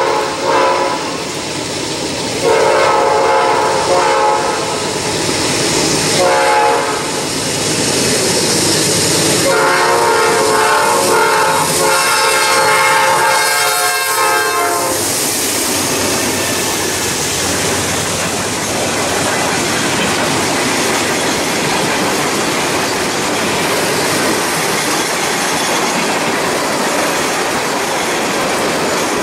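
Norfolk Southern freight train's locomotive horn sounding four blasts, the last and longest running about five seconds, over the rumble of passing freight cars. After the horn stops, about halfway through, the steady rolling clatter of the freight cars on the rails continues.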